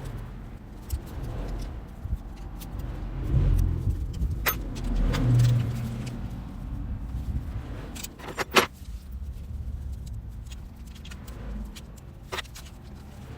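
Hand-tool work on a motorcycle's generator cover: scattered metallic clinks and knocks over a low rumble, with a few sharp clicks spread through.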